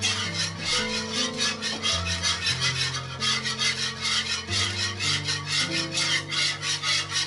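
Wire whisk scraping briskly around a nonstick frying pan as it stirs a thin liquid sauce, in quick, even strokes several times a second, over background music with held low notes.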